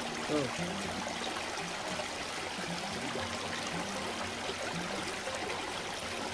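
Steady rush of a small river's flowing water, with faint voices in the background.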